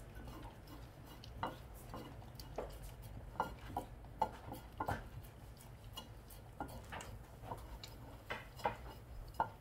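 Jindo dog licking a ceramic plate clean, its tongue and teeth knocking against the dish in irregular short clicks and taps.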